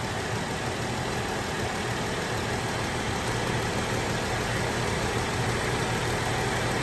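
Vehicle engine idling steadily with the freshly recharged air-conditioning system running and its compressor cycling.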